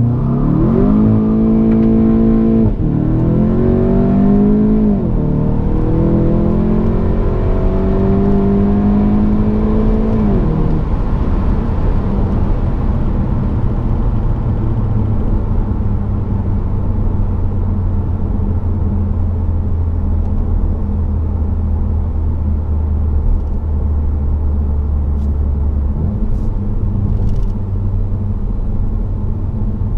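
Volkswagen Golf GTI Performance Pack's turbocharged four-cylinder engine, heard from inside the cabin, launching from launch control and accelerating hard, its note climbing and dropping at quick DSG upshifts about 3, 5 and 10 seconds in. It then settles into a steady drone with road and tyre noise as the car cruises.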